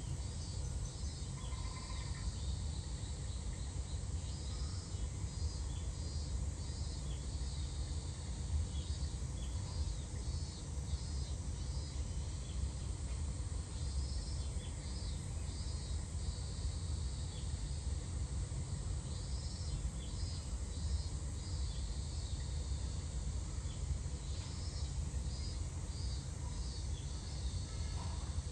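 Cicadas chirring in repeated pulsing phrases, over a steady low rumble.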